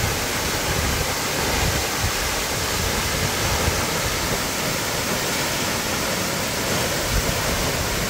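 Steady rush of a waterfall of about 20 m pouring down a rock cliff into a plunge pool.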